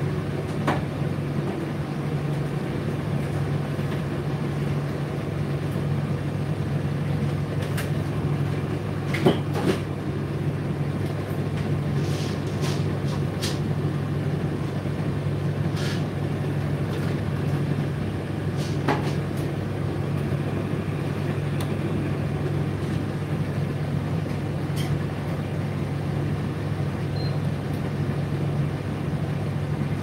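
Indesit IDC8T3 8 kg condenser tumble dryer running mid-cycle: a steady low hum with the drum turning, and a few short clicks and knocks scattered through, the loudest about nine seconds in.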